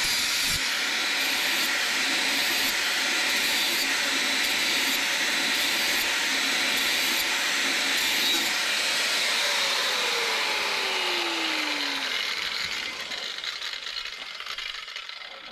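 Corded angle grinder running against the steel cam of a toolbox cam lock, grinding a ramp onto it. The grinding goes on steadily, then the grinder winds down and fades over the last few seconds.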